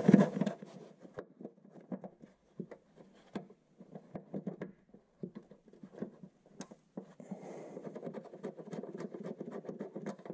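Gloved hands scraping and tapping on a car's underbody: a louder scratchy noise stops about half a second in, then come faint, irregular taps and scratches, and a steadier rubbing from about seven and a half seconds in.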